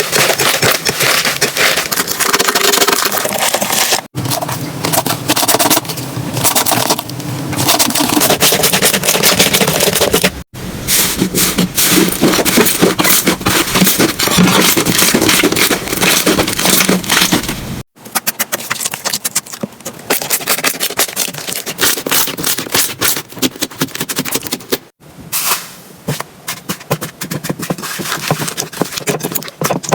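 Slime being squeezed and pressed, giving a dense crackling and crunching, in several short clips cut abruptly one after another.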